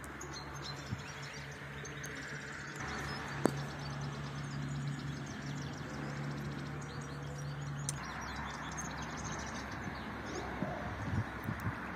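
Outdoor ambience of small birds chirping over a steady low hum that stops about eight seconds in. A single sharp click sounds about three and a half seconds in, and a few faint knocks come near the end.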